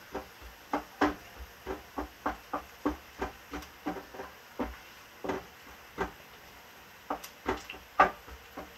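Wooden spatula stirring in a frying pan, knocking and scraping against the pan about two to three times a second, with a short pause a little past the middle and the loudest knock near the end.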